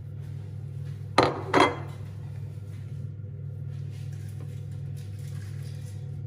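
Two sharp clinks of kitchen crockery about half a second apart, over a steady low hum.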